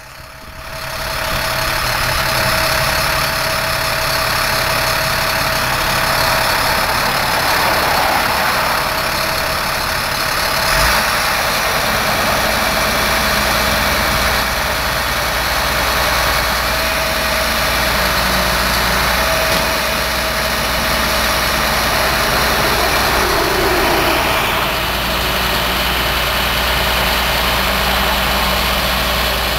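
Engine of a truck-mounted crane running steadily while the boom lifts a large sign, with a steady mid-pitched whine and a single knock about eleven seconds in.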